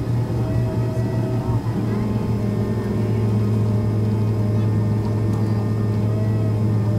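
Cabin noise of a Boeing 767 rolling off the runway after landing: a steady engine drone with a strong low hum, evening out about two seconds in.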